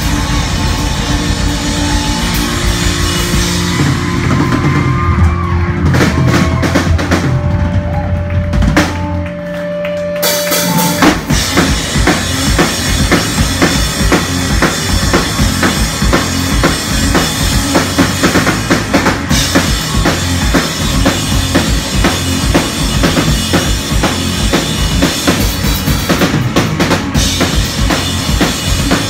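Live rock band playing loud through a club PA. For the first ten seconds or so guitar and bass hold sustained notes with little beat, then the full band with drum kit comes in about eleven seconds in and keeps up a fast, steady rock beat.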